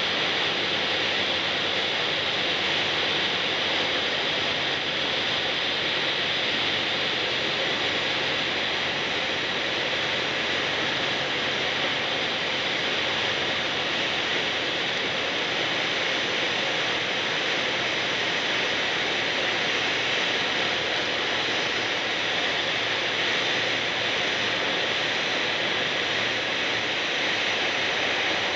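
Steady cabin noise inside a Piper light aircraft on final approach and landing: engine drone and rushing air blend into an even, unchanging hiss, with no distinct touchdown thump.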